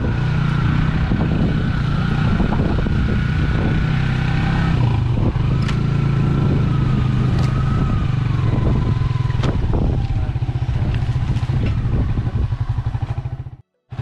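A small motorcycle engine runs steadily as the bike rides over a bumpy dirt track, with scattered knocks and rattles. A higher whine in the engine note drops in pitch about halfway through, and the sound cuts out for a moment near the end.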